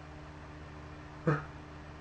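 Faint steady hum, then about a second in a brief sharp in-breath, the build-up to a sneeze.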